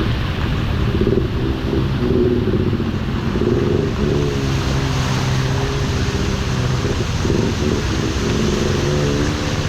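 A road vehicle's engine running on the move, its pitch stepping up and down, over a steady hiss of wind and road noise.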